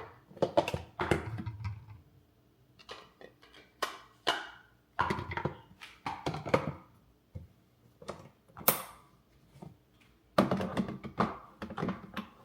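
Scattered thunks and clicks of containers and parts being handled and set down, coming irregularly with short quiet gaps between them.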